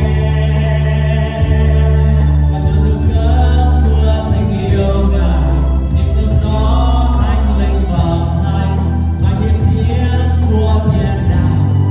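Worship band and congregation singing a praise song, with a steady drum beat and strong bass.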